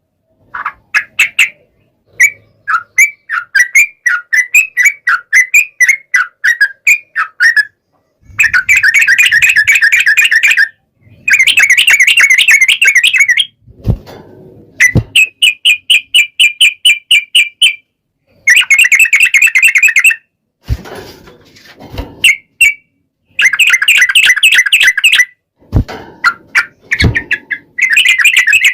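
Sooty-headed bulbul (trucukan) song: bursts of rapid, repeated chattering notes a few seconds long, with short pauses between them and some fast trilled runs. A few short low knocks fall in the middle and near the end.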